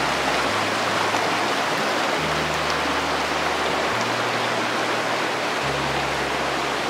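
Creek water rushing steadily, with soft background music whose low bass notes change about every second and a half.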